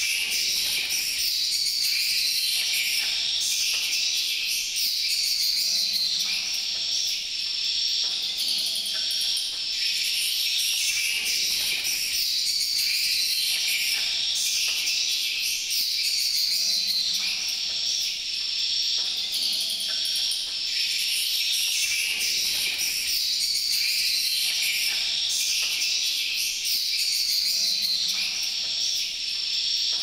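Dense, steady high-pitched twittering and chirring of edible-nest swiftlets, in a pattern that repeats every five or six seconds.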